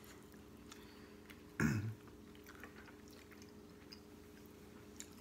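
Faint chewing and small clicks of people eating a seafood boil by hand, over a steady low hum. One short vocal sound comes about one and a half seconds in.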